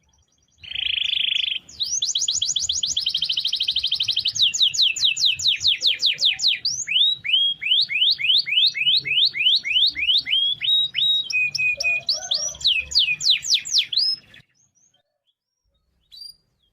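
Domestic canary singing a long rolling song. It opens with a harsh buzz, then moves through fast trills and runs of repeated sweeping notes that change speed from phrase to phrase, and stops about fourteen seconds in.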